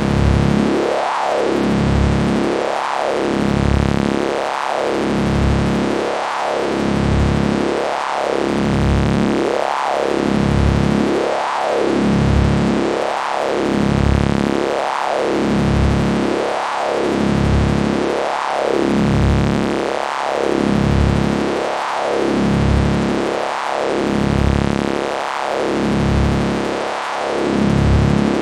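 Synthesized science-fiction electricity effect: a loud, dense electric buzz whose pitch sweeps up and then back down about every second and a half to two seconds, in a steady repeating cycle.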